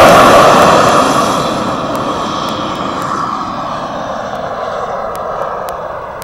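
Engine of a radio-controlled model Grumman F9F Cougar jet at full power on takeoff, a loud rushing jet noise that fades steadily as the plane climbs away, with a whine that falls in pitch over the last few seconds.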